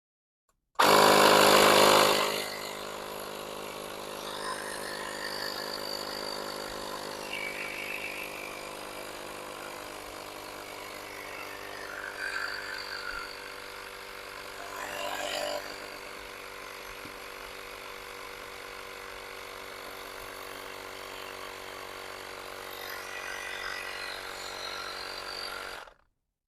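Portable battery-powered tire inflator's small piston compressor running steadily while pumping up a flat car tire. It starts louder for the first second or so and stops suddenly near the end.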